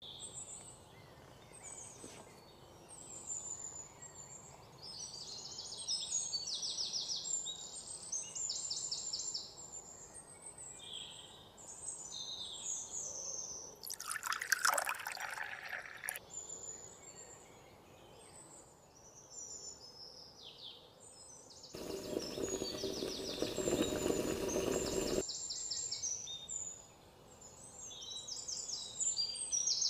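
Small birds chirp and trill steadily in the background. About halfway through, water pours into a large metal pot, and a second, longer pour into the pot follows a few seconds later.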